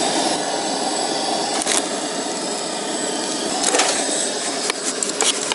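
Propane burner running with a steady rushing hiss, a few faint clicks over it.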